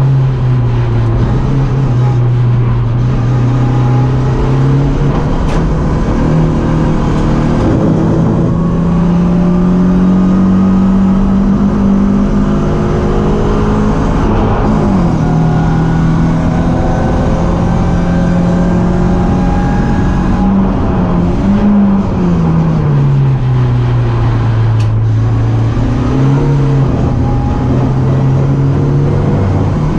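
BMW 318ti race car's four-cylinder engine running hard at racing speed. Its pitch holds steady for stretches, drops as the car slows near the start and again a little after 20 seconds, then steps up and climbs as it accelerates again.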